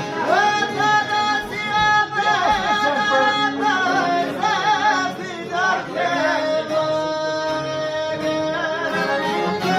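Folk song: a voice sings long held notes with a wavering, vibrato-like pitch over instrumental accompaniment.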